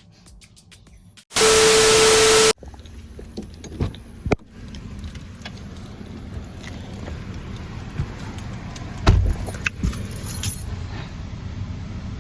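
A loud burst of static-like noise with one steady tone for about a second, an edit transition sound. Then the steady low rumble of a car's interior, with scattered clicks and rattles and a thump about nine seconds in.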